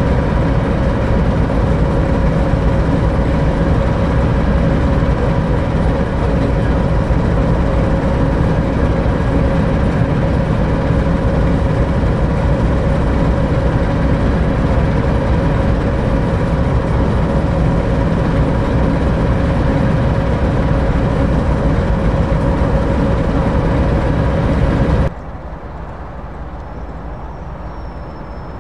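British Rail Class 08 shunter's English Electric six-cylinder diesel engine idling steadily, heard close up. About 25 seconds in the sound drops suddenly to a much quieter, more distant engine hum.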